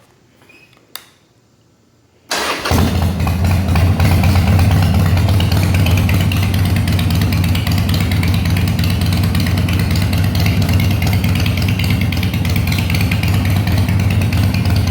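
2004 Harley-Davidson Sportster 1200 Custom's air-cooled V-twin starting abruptly about two seconds in, then idling steadily and loud through Screamin Eagle II mufflers with the baffles removed. A single click comes about a second in, before the start.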